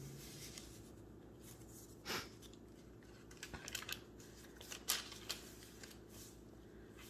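Faint paper handling from a handmade journal: a single page swish about two seconds in, then scattered light taps and rustles of paper and card.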